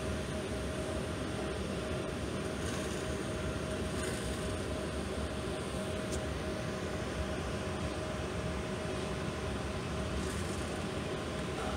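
A steady rumbling noise with a constant mid-pitched hum, running without change.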